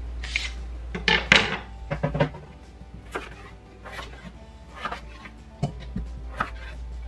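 Chef's knife cutting peeled raw potatoes on a wooden cutting board: irregular knocks of the blade on the board about once a second, loudest in a quick cluster about a second in. Cut chunks are set into a glass bowl.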